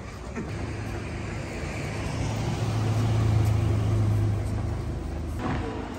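A car driving past on the street: a low engine hum and tyre noise that grow louder to a peak about halfway through, then fade.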